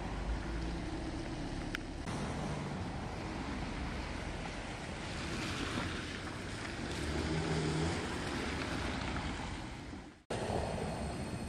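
Steady rushing outdoor noise with a low rumble. About ten seconds in it fades, cuts out briefly and starts again abruptly.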